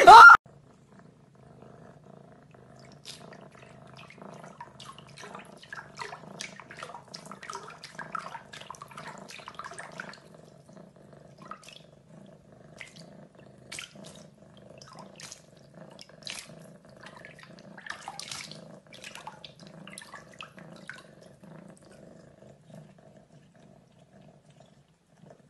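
A cat pawing and slapping at shallow water in a bathroom sink: scattered small splashes and drips, busiest in the first half and dying away near the end, over a steady low hum. A brief loud sound at the very start.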